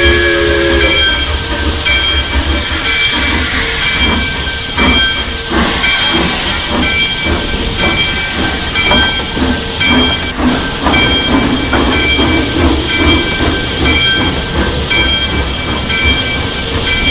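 Steam locomotive sound effects: a chime whistle chord ends about a second in, then two loud hissing blasts of steam, followed by the engine running with a low rumble and rhythmic beats.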